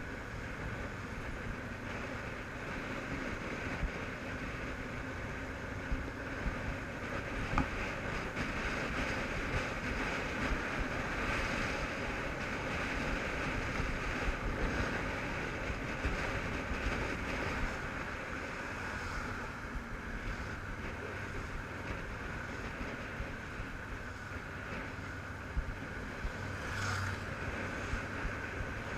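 Wind buffeting a helmet-mounted microphone over the steady running of a Honda CBF500's parallel-twin engine, ridden at town speed.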